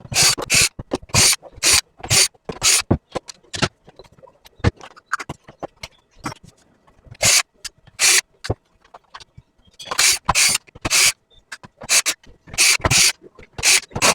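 Short, sharp scraping or brushing strokes in irregular clusters, each a quarter second or so, from cleaning the dust out of a clogged robot vacuum filter.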